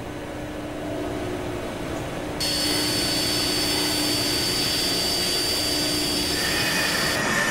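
Diamond-polishing wheel (scaife) spinning with a steady mechanical hum. About two and a half seconds in, a louder hiss with a steady high whistle comes in suddenly and holds as the diamond is worked against the wheel.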